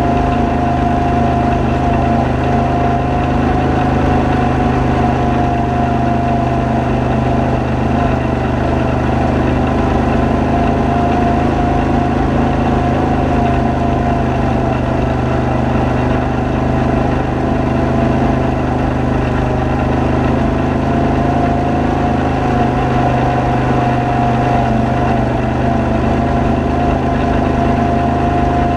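ATV engine running steadily while riding a gravel trail, with a high whine that wavers slightly up and down in pitch.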